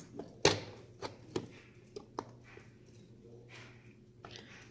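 Small plastic toy parts clicking and tapping as pieces of a toy pirate ship are handled and fitted together: a sharp click about half a second in, several lighter clicks over the next two seconds, and a softer one near the end.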